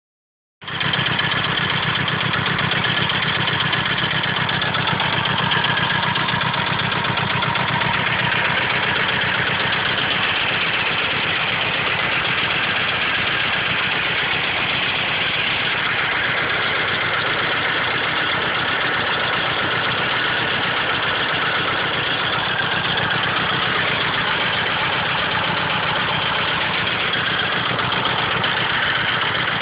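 1995 Mitsubishi Eclipse GSX's turbocharged 6-bolt 4G63 four-cylinder idling steadily, with the knock noise that the owner is recording. It starts abruptly about half a second in.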